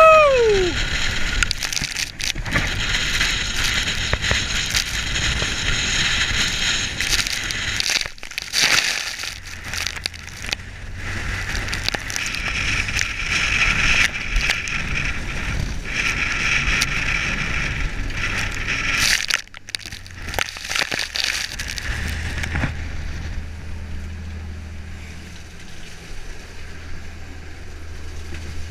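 Loud rushing and splashing of sea water and spray as the trawler pounds through rough chop, with a shout of 'Woo!' at the start. After about 22 seconds the splashing eases, leaving the steady low drone of the boat's Perkins T6.354 turbo diesel.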